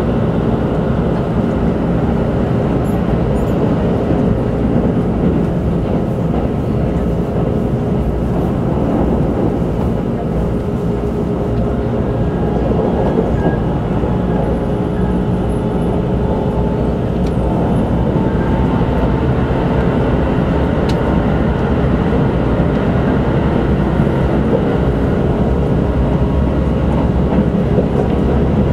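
Keikyū 2100 series electric train heard from inside the passenger car while running: a steady rumble of wheels and running gear on the track, with faint steady tones under it.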